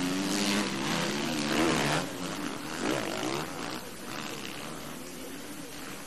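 Motocross bike engines revving, their pitch rising and falling as the riders work the throttle over the track. They are loudest in the first two seconds, then fall away to a fainter engine drone.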